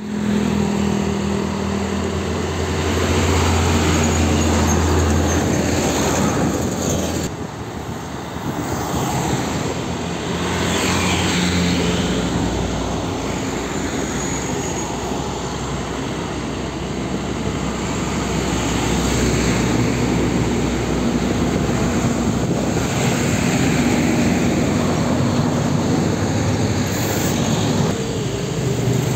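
Heavy diesel trucks and motorbikes passing close by one after another, with engine drone and tyre and road noise.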